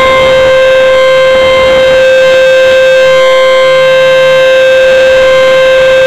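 Outdoor tornado warning siren, a rotating horn on a pole, sounding its monthly test: a loud, steady tone held at one pitch.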